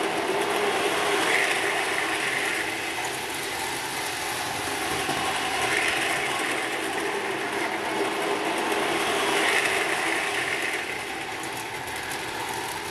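Postwar Lionel O-gauge toy trains running on tinplate track: a steady motor whir and wheel rumble. It grows louder about every four seconds as the train comes round close by.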